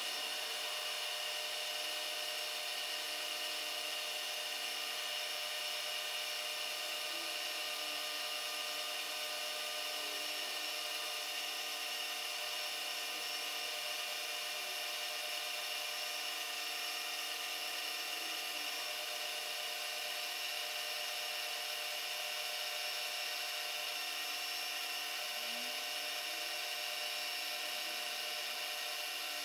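Milling machine spindle running steadily while an end mill takes a facing cut across the top of a small casting, a steady whine made of many tones at once.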